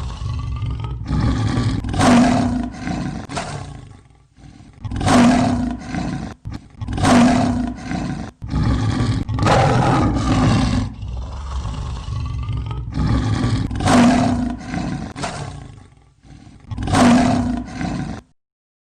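Recording of a lion roaring: a series of deep roars with loud peaks every two to three seconds, cutting off suddenly near the end.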